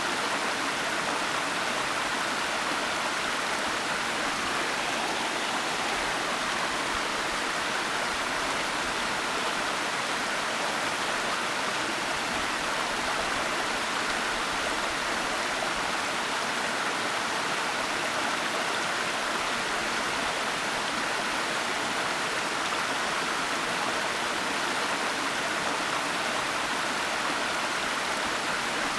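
Waterfall: water falling and rushing, a steady even hiss with no changes.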